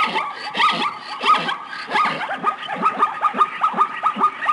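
Zebras barking: a rapid run of short, downward-sliding yelping calls, about three a second, with a steady high whine underneath.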